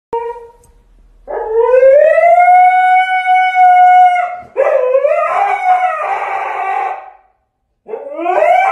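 A dog howling: three long howls. The first rises and then holds one steady pitch for nearly three seconds, the second is rougher and more ragged, and the third starts rising near the end.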